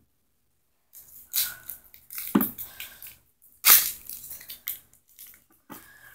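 Foil Pokémon booster pack wrapper crinkling and tearing open in the hands, in a series of irregular crackling bursts starting about a second in.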